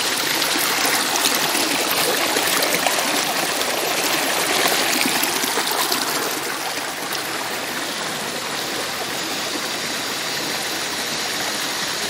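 Shallow stream rushing and splashing over rocks: a steady, even water noise that eases slightly about halfway through.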